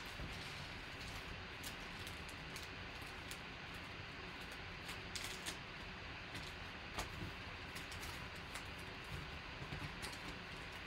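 Foil-wrapped trading card packs crinkling and rustling as they are shuffled and dealt into piles on a table, with scattered light clicks and taps. A steady faint hiss lies under it.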